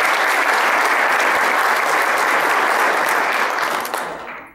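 Audience applauding: a steady round of clapping that fades out near the end.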